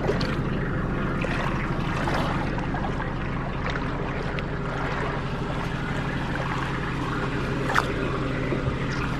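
An engine idling steadily, with a constant low hum, and light water splashing and knocks over it.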